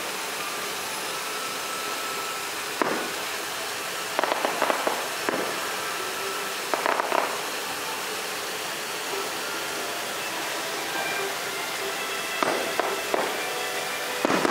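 Fireworks shells bursting overhead: a single report about three seconds in, a quick cluster of crackling reports around four to five seconds, another pair around seven seconds, and more near the end, over a steady background hiss.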